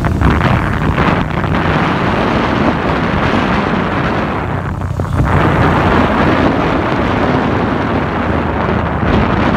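Strong wind rushing over the microphone at riding speed on a motorcycle, with the engine's low hum underneath. The wind eases for a moment about five seconds in.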